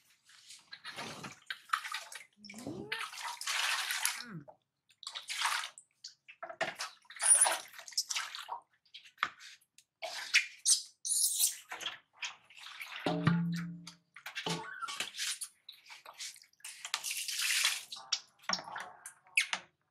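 Water splashing and sloshing in a large metal basin as a baby monkey paddles and thrashes in it, in irregular bursts of splashes, some sharp and loud.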